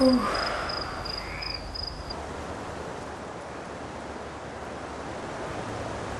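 A sharp knock right at the start, crickets chirping for about the first two seconds, then a steady rush of wind blowing in through an open window.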